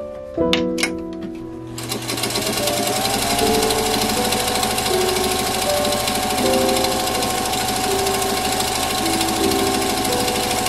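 White Singer Featherweight electric sewing machine starts about two seconds in and runs steadily, stitching through layers of fabric and batting. Background music plays throughout.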